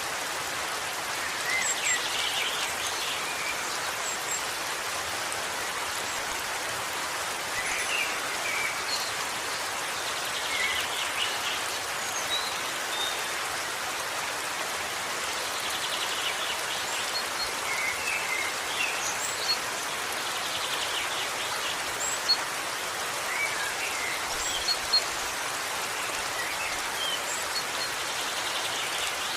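Waterfall: a steady rush of falling water, with short high chirps scattered through it.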